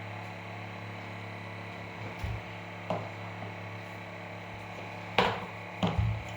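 Handling of an Apple Watch's box and packaging: a few light knocks and taps, two louder ones near the end, over a steady electrical hum.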